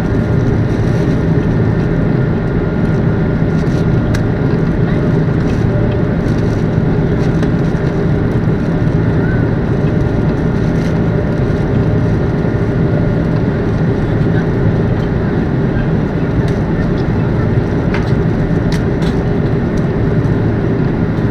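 Airbus A330-200 jet engines and airflow heard inside the passenger cabin: a loud, steady, deep noise that does not change, with faint steady tones above it.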